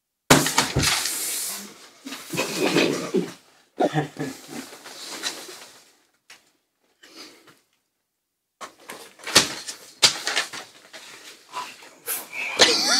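Several people holding back laughter: breathy snickers and stifled giggles through closed mouths, in short bursts with silent gaps between them. A couple of sharp knocks come about nine to ten seconds in.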